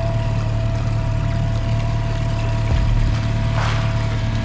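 Boat motor running steadily at trolling speed, a constant low hum with a faint steady whine above it. A short hissing rush comes about three and a half seconds in.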